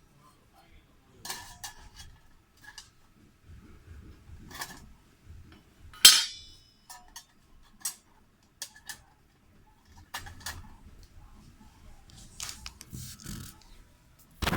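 Metal parts of a homemade knock-down fire pit clinking and tapping as they are fitted together. The taps are scattered, with a sharper clink about six seconds in and a loud knock right at the end.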